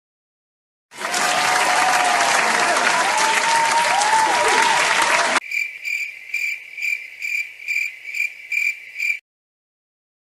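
Stock sound effect of a crowd applauding and cheering, cutting off abruptly after about four and a half seconds. It is followed straight away by the crickets-chirping effect, a high chirp repeating about two to three times a second, which stops abruptly near the end.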